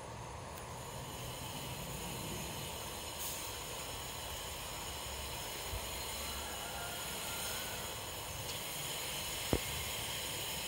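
Steady rushing background noise, with one sharp knock near the end.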